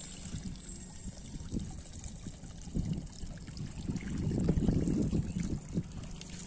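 Water sloshing and trickling as a plastic basin is dipped into shallow field water and lifted out with a fish in it, loudest about four to five seconds in.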